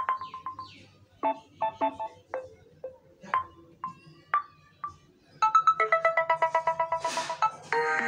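Built-in Samsung Galaxy A71 ringtones previewing one after another from the phone's speaker as each is tapped, each cut short by the next. Short chimes and plucked notes give way about five and a half seconds in to a fast run of beeps, then a brief whoosh, and a new melody starts near the end.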